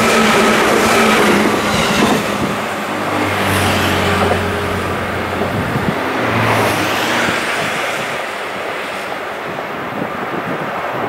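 A hauled train of 205 series cars rolls past, its rolling noise giving way to the steady noise of road traffic. A low hum rises about three seconds in and again near seven seconds.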